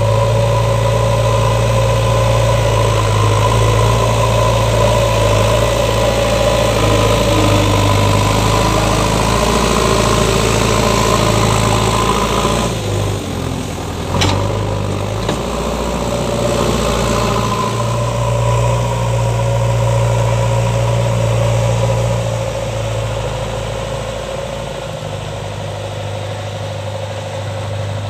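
JCB 3DX backhoe loader's diesel engine running steadily as the machine pushes soil with its front loader bucket. The drone dips briefly about halfway, with a single sharp click, and is lower near the end.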